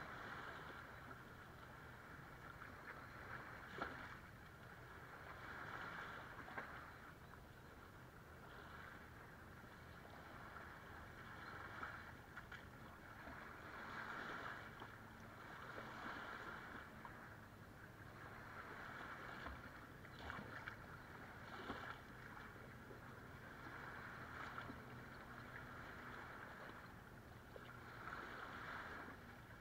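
Small waves lapping and washing over sand and rocks at the shoreline, swelling every few seconds, with a few light splashes. A faint, steady low hum of distant boat engines runs underneath.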